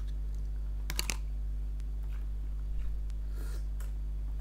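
Mouth sounds of a person eating rice with the hands: chewing and lip smacks, with two sharp clicks about a second in, over a steady low hum.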